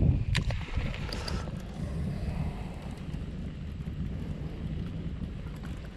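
Wind buffeting the microphone on an open boat, a steady low rumble, with a couple of short clicks in the first second and a half.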